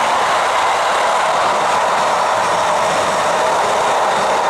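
Freight train of loaded flat wagons rolling past close by, a steady loud noise of steel wheels running on the rails.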